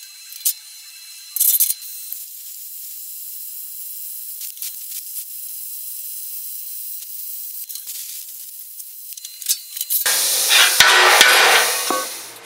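MIG welding arc sizzling and crackling: a short burst, then a long continuous bead of steady hiss. Near the end a louder, fuller rushing noise takes over for about two seconds.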